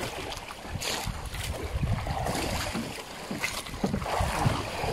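Sea water lapping and splashing beside a small outrigger fishing boat as a long line is hauled in by hand, with wind rumbling on the microphone and a few short knocks.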